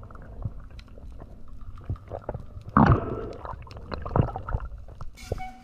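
Muffled underwater sound through an action camera's waterproof housing: a low rumbling water noise with scattered sharp clicks, and two louder surges about three and four seconds in.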